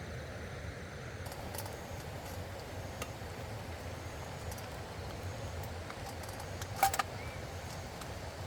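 Steady rushing of loud running water, with scattered light clicks and one sharper click about seven seconds in.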